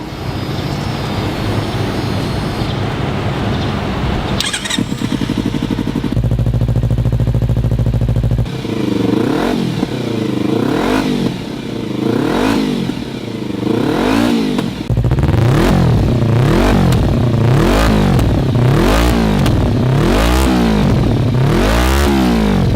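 Kawasaki Z250 parallel-twin engine breathing through a Scorpion aftermarket exhaust, running steadily and then held at a higher speed for a couple of seconds. It is then blipped again and again, each rev rising and falling, at first about once a second and then louder and quicker.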